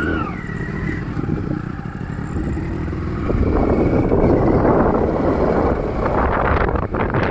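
Motorcycle running as it is ridden along a road, growing louder about three seconds in.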